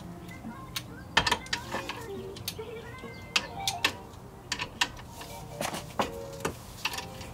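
Metal hand tools clicking and knocking on the front brake caliper bolts of a 1985 Toyota Corolla AE86 as a long wrench is fitted and worked to remove the caliper: a string of sharp, irregular clicks, the loudest just over a second in.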